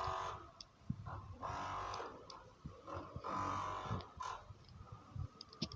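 Thin-sheet steel door creaking as it is opened and swung, several drawn-out squealing creaks with a few light clicks, even though its hinges have just been greased.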